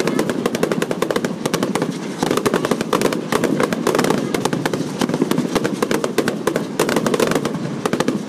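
Ground-launched consumer fireworks crackling: a dense, rapid string of small pops that never lets up, over a steady rush.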